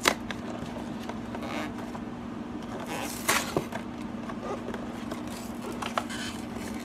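A cardboard sample box being handled and opened by hand: a sharp tap at the start, then scraping and rustling of the cardboard, loudest about three seconds in, with a few small clicks. A steady low hum runs underneath.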